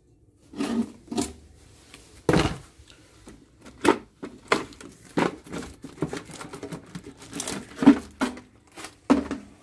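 Cardboard and plastic packaging of an aquarium kit being handled and pulled out: an irregular run of knocks, scrapes and crinkling, with the sharpest knocks about two and a half seconds in and about eight seconds in.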